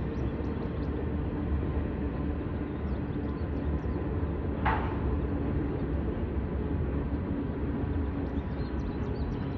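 Freight train rolling slowly past with a steady low rumble of wheels on rails as it slows down. About halfway through there is a single sharp metallic clank.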